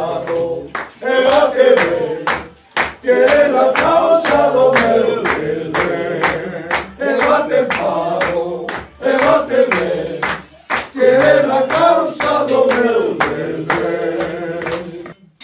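A group of people singing a song together and clapping along in a steady beat, about three claps a second; the song ends shortly before the close.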